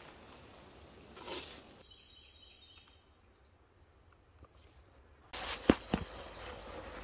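Rustling of clothing and canvas gear being handled, then near the end two sharp clicks close together as the flap of a canvas haversack is opened.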